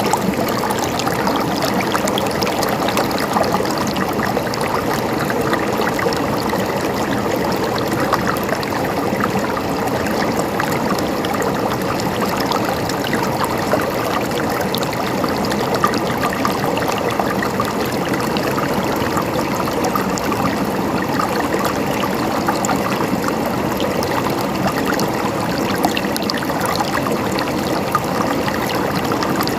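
River water flowing, a steady rush dotted with many small splashes and gurgles.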